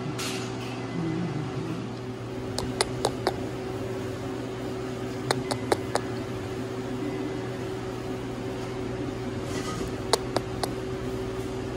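Steady low hum with scattered light clicks and taps, in small clusters a few seconds apart.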